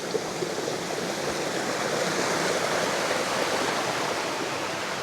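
Steady rushing of flowing water, a stream or small waterfall running continuously.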